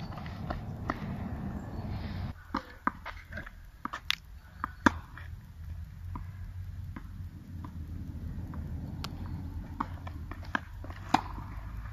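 Tennis ball being struck with rackets and bouncing on an outdoor hard court during a rally: sharp, separate knocks, a cluster a few seconds in and another near the end, with a low rumble at the start that drops away about two seconds in.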